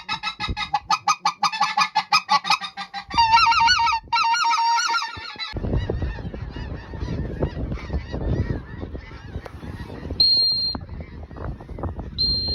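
Rapid, regular goose-like honking calls for about five seconds, ending in a few longer drawn-out calls. These break off suddenly into a noisy rustling haze, with two short high beeps near the end.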